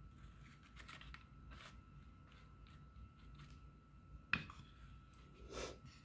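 Faint clicks and scrapes of a metal spoon scooping a thick chocolate mixture off a plate and pressing it into a plastic candy tray, with one sharper click about four seconds in.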